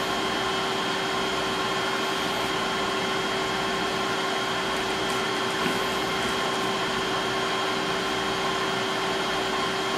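Steady whirring hum of running lab equipment fans, with a few faint steady tones.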